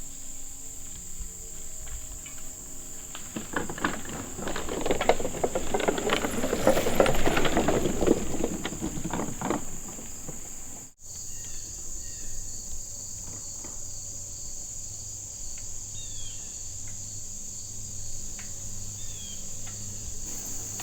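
Crickets and other insects keep up a steady high-pitched trill. In the middle, for about six seconds, a mountain bike's tyres roll and clatter over the wooden planks of a trail skinny.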